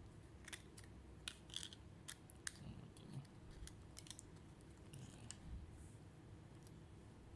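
A run of small sharp clicks and taps, about a dozen in the first five seconds, from hands working on a laptop's internals during a memory upgrade.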